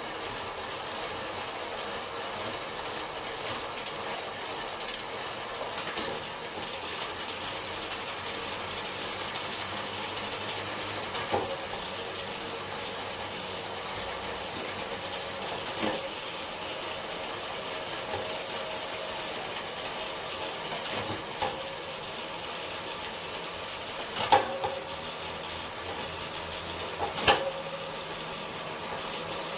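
SRAM Force AXS 12-speed chain running over its cassette with a steady, loud mechanical rattle that the owner considers excessive chain noise. A few sharp clicks stand out, the two loudest near the end.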